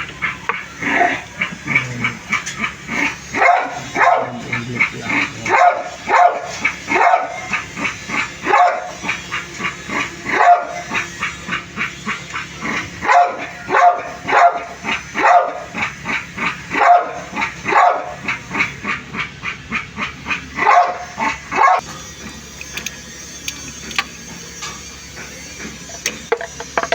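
A dog barking over and over, about two or three barks a second, which stops about 22 seconds in. After that only a steady hiss-like noise remains.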